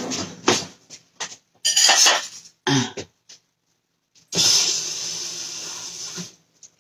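A few short clinks and clatters of kitchen utensils and dishes, then a kitchen faucet runs steadily into the sink for about two seconds before shutting off.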